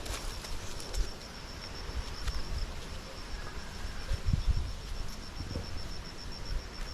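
An insect trilling, a high note pulsed evenly at about seven beats a second, with low rumbling bumps and a few faint clicks underneath.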